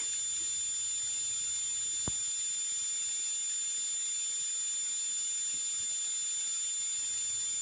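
A steady high-pitched whine, two constant tones over a faint hiss, with one soft click about two seconds in.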